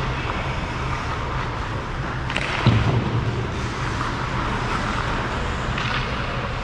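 Ice rink ambience during pick-up hockey: a steady low hum and hiss, with faint distant skate and stick sounds and a single sharp knock about two and a half seconds in.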